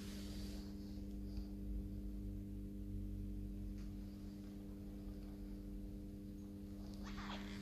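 Steady low hum made of several held tones together, unchanging throughout: the room's background hum.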